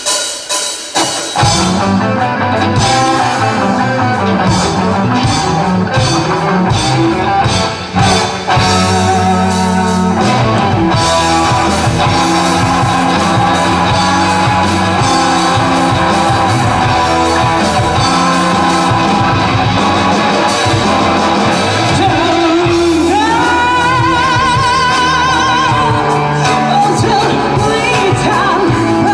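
Live rock band playing: a few drum hits, then the full band with bass and electric guitar comes in about a second and a half in, and a singer's wavering vocal line joins over the band in the last few seconds.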